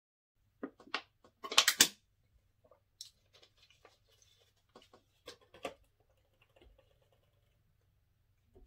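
Plastic water bottle being handled and opened: a loud burst of crinkling about a second and a half in, then scattered small clicks and crackles as the cap is twisted.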